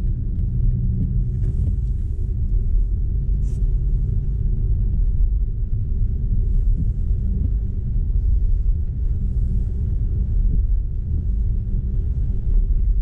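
Steady low road and tyre rumble from a BMW i4 M50 electric car on the move, with no engine note. A few faint ticks sit on top.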